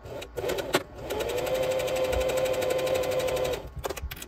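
Singer electric sewing machine stitching through a folded strip of waterproof canvas: a steady motor hum with a fast, even needle beat that runs for about two and a half seconds and then stops. It is framed by a few light clicks of the machine and handling, just before it starts and just after.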